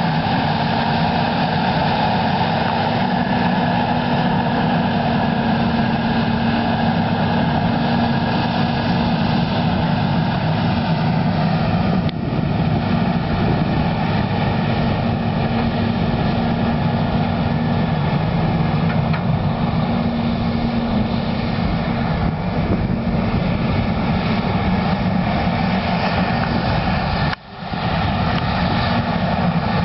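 Versatile 550 tractor's diesel engine running steadily under load while pulling a Cat 80 scraper. The sound drops out briefly about two seconds before the end.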